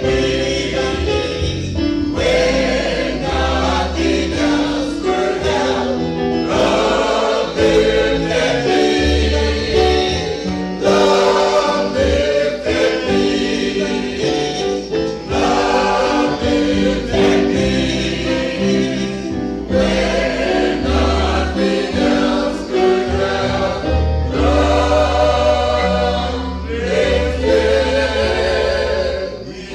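Choir singing a gospel song with sustained notes over a low bass line.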